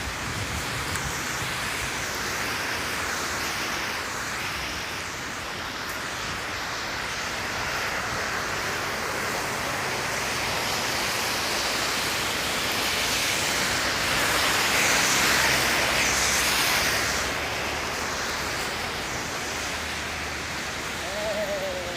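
Blizzard wind blowing, a steady rush that swells louder for a few seconds about two-thirds of the way through.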